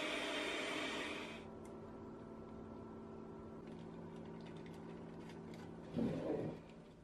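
Electric hand mixer whirring as it whips eggs and sugar for a sponge cake, cutting off about a second in. A quieter steady hum follows, and a brief low thump comes near the end.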